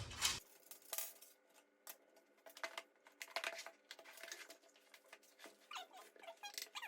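Scattered light clicks, taps and short squeaks of parts being handled and pulled out of a PC case's support brackets.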